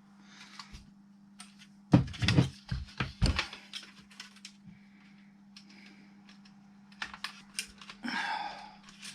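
Small plastic clicks and knocks from handling a car radio unit while its ribbon cable is fed back into the connector, with a cluster of sharper knocks about two to three seconds in and a brief rustle near the end. A steady low hum runs underneath.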